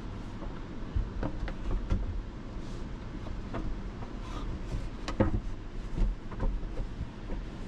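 Wooden boards knocking and clacking together at irregular intervals as notched pieces of a bed-platform frame are slotted into place.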